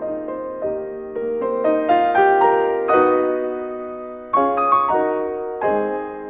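Background piano music: single notes and chords struck about every half second and left to ring out, with a louder chord about four seconds in.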